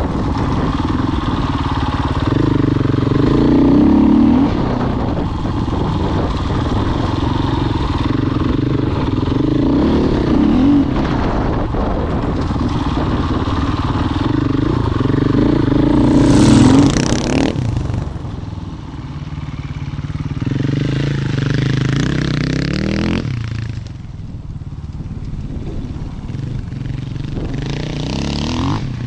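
Husqvarna FE 501 dirt bike's single-cylinder four-stroke engine running hard, its revs rising and falling again and again as the bike accelerates and slows through tight turns. The engine is quieter near the end, heard from farther off.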